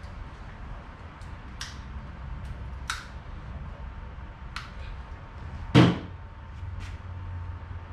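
Small metal clicks of a motorcycle shock bracket, its spacers and screws being handled and fitted by hand. About six seconds in comes one louder knock as something is set down on the workbench.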